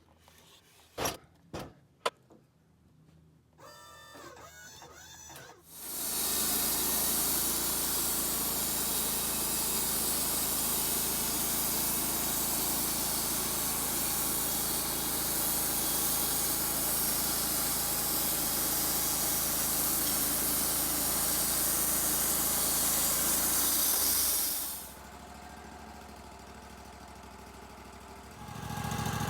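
Wood-Mizer LT35 band sawmill: a few light clicks, then the machine starts up about four seconds in and comes up to full speed about two seconds later, its band blade sawing through cedar. The loud cutting sound holds steady for about eighteen seconds, drops back to a quieter running hum, then rises again at the very end.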